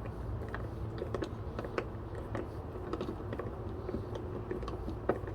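Irregular light clicks and taps of hands and tools working on a doorbell's plastic mounting parts, with one sharper click near the end, over a steady low rumble.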